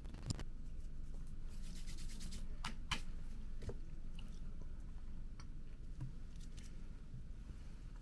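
Small clicks, taps and rustles of an aluminium drink can and a paper napkin being handled on a table, over a steady low room hum.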